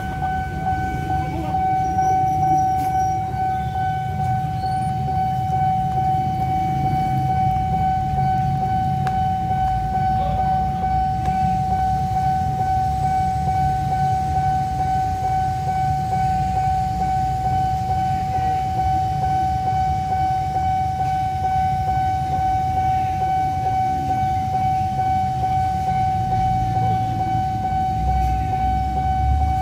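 Railway level-crossing warning alarm sounding one unbroken high tone, over a constant low rumble.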